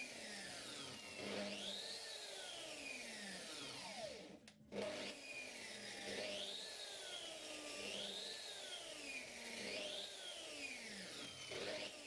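Plunge saw motor being switched on and off over and over in a test run: each pull of the trigger spins it up with a rising whine, and each release lets it coast down, about every one and a half to two seconds, with a brief gap about four and a half seconds in. It starts on every pull of the trigger, showing that the repaired power cable now carries current.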